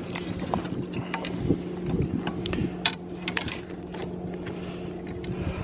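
A striped bass being landed in a landing net and lifted over the side of a small dinghy, with scattered clicks and knocks of net, fish and hull. A steady low hum runs underneath.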